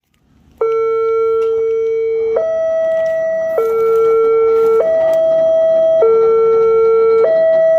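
Railway level-crossing warning alarm from the signal's horn loudspeaker: an electronic two-tone sound switching between a lower and a higher steady tone about every one and a quarter seconds, starting about half a second in. It warns that a train is coming and the barrier is closing.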